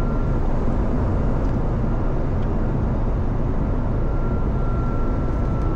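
Steady cockpit noise of a Bombardier Global 6000 twin-turbofan business jet on approach: an even rush of airflow and engine noise. A faint high steady tone sounds at the start and again from about four seconds in.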